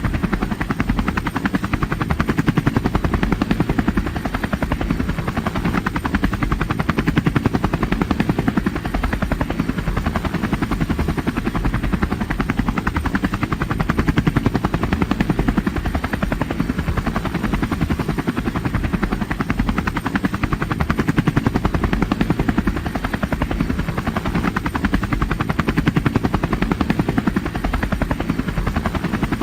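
Helicopter in flight, its rotor blades giving a fast, steady chopping beat that sits mostly in the low end, with no change in pitch or loudness.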